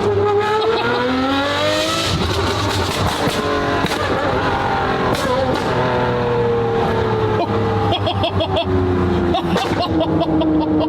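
Ferrari 599's V12 engine pulling hard, its note rising for about two seconds, then a break as the manual gearbox is shifted, and later a long steady fall in pitch as the car slows.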